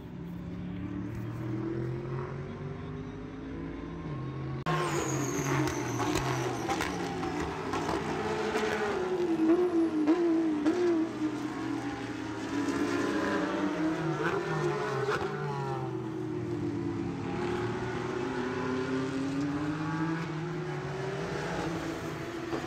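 Race car engines running at speed, their pitch rising and falling as they rev and pass. The sound changes abruptly about five seconds in, turning brighter and louder.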